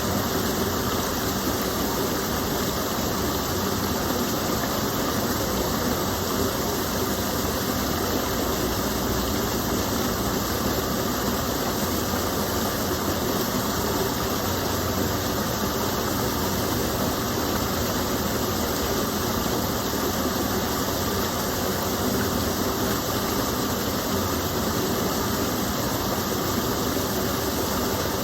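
Steady rushing of a small stream of water falling and splashing, continuous and even with no breaks.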